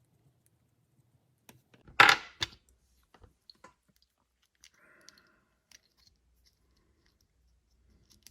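Small parts and tools being handled while reassembling a tiny RC crawler's transmission: scattered light clicks, with one loud clatter about two seconds in and a smaller one just after.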